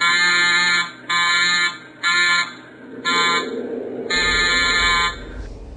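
An electric alarm buzzer sounding in five harsh bursts of uneven length, the last one the longest. A low rumble comes in under it about four seconds in.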